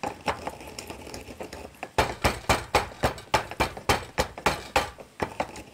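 Wooden pestle pounding roasted cumin seeds in a wooden mortar. Light, scattered taps at first, then from about two seconds in a steady run of sharp knocks, about three or four a second, stopping near the end.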